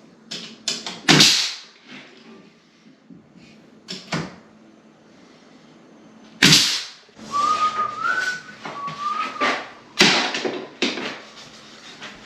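Sharp knocks and thumps from a door being fitted and shimmed in its frame, with a person whistling a few wavering notes in the middle.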